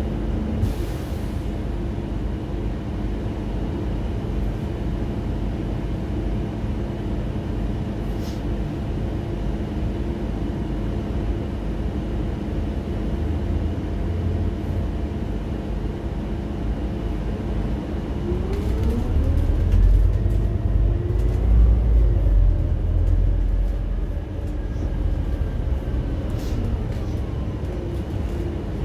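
Scania N280UD compressed-biogas bus heard from inside while running, with a steady engine and road rumble. About two-thirds of the way through the engine note climbs in pitch and grows louder for a few seconds as the bus pulls harder, then the pitch falls away again.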